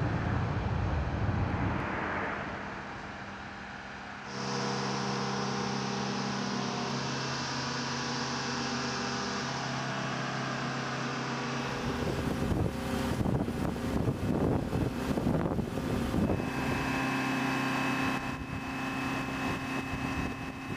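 Flight-line machinery running, changing in blocks: a low rumble, then from about four seconds a steady whine with a high hiss, then an uneven rumble from about twelve seconds, and near the end a steady hum with a thin high tone.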